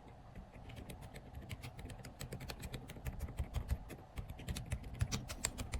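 Typing on a Fox65 mechanical keyboard fitted with Outemu silent linear switches: a quick run of quiet keystrokes, growing faster and a little louder about four seconds in.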